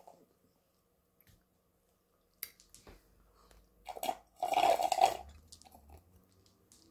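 Smoothie sucked up through a straw from a paper cup: a few small clicks, then one short, loud slurp about four and a half seconds in.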